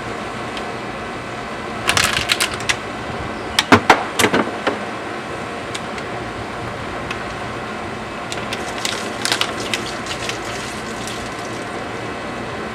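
Plastic bottles and trash rattling and crinkling as they are handled and pulled out of a car, in short clattery bursts about two, four and nine seconds in, the loudest around four seconds, over a steady background hum.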